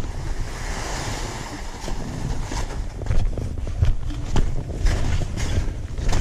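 Skis hissing and scraping over granular spring corn snow, with wind rumbling on the camera microphone. From about halfway in, a series of short, sharp scrapes comes through as the skis carve and chatter.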